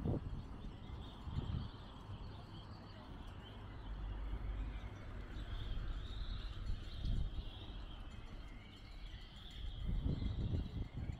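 Small birds chirping steadily over a low, gusty rumble of wind on the microphone, with passers-by talking briefly near the end.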